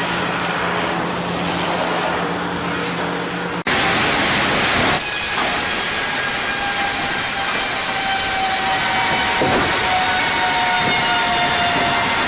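Sawmill machinery running with a steady hum, then, a little over three seconds in, an abrupt change to a louder saw cutting wood: a hissing rush with steady high-pitched whines.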